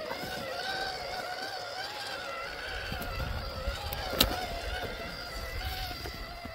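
Scale RC crawler truck's electric motor and gearbox whining steadily, the pitch wavering a little with the throttle as it crawls over rocks. A sharp knock comes about four seconds in.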